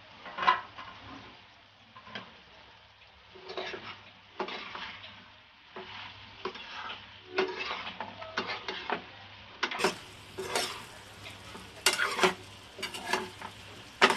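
A spatula stirring and scraping spiced potato bhaji in a pan, with irregular clinks and scrapes against the metal over a faint sizzle.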